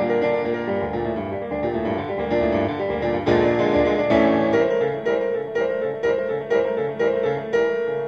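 Background piano music, with chords and quick notes struck in succession.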